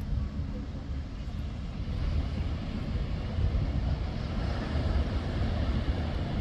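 Ocean surf washing on the beach with wind rumbling on the microphone, a steady noise that swells a little about halfway through.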